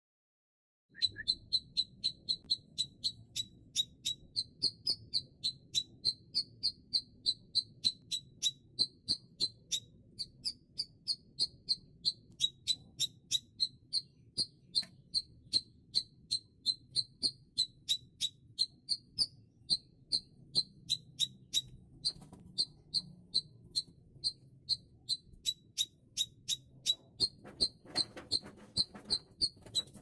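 Bayeman bird giving its 'ngepik' call: short, sharp, high 'pik' notes repeated in an even rhythm, about two to three a second, without a break.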